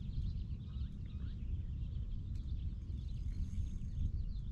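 Wind buffeting the microphone as a steady low rumble, with many small birds chirping in the background.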